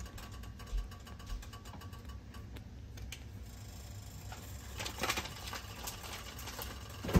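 Creamy chicken pot pie filling bubbling in a pot on the stove: a stream of small pops and clicks over a steady low hum. A sharp clack comes just before the end.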